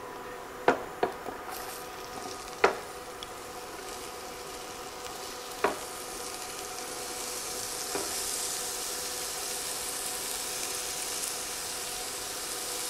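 Diced onion sizzling as it lands in a hot skillet of pork-chop drippings, the hiss building steadily as more onion is scraped in off a wooden cutting board. A few sharp knocks sound in the first few seconds as the board and knife hit the pan.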